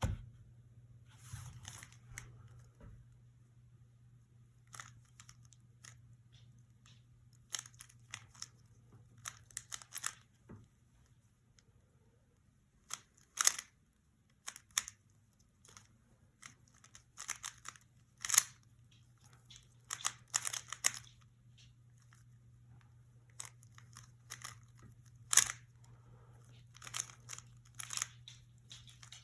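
Irregular clusters of sharp clicks and crinkling, as of a small plastic object being handled, over a steady low electrical hum.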